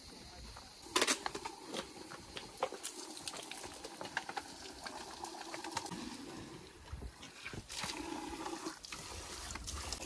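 Water being poured out, amid scattered irregular clicks and knocks.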